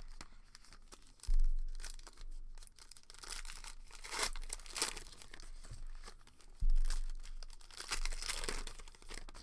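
Foil card-pack wrappers being torn open and crinkled by hand, in irregular rustling strokes. Two dull thumps, about a second in and about two-thirds of the way through, are the loudest sounds.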